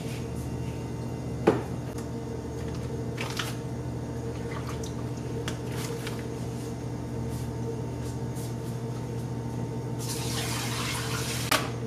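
Light clicks and rustles of plastic packaging as thawed catfish fillets are unwrapped, over a steady low hum. About ten seconds in comes a second and a half of hissing noise.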